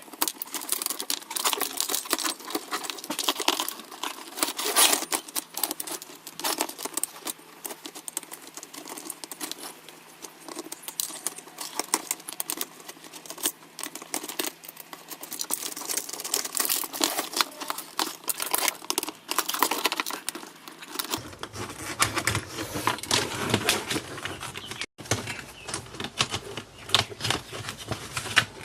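Dense clicking, tapping and rattling of tools on the metal and plastic parts of a DVD home-theater receiver being taken apart.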